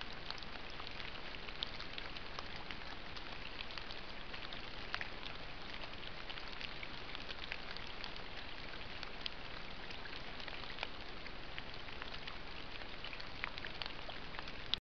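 Steady rain pattering down, an even hiss dotted with many sharp drop ticks; it stops abruptly near the end.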